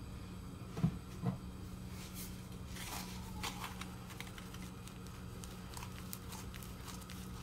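Salt poured from a canister into a pot of water, a faint scattered pattering that starts about two seconds in and runs on. Two soft knocks come about a second in, over a steady low hum.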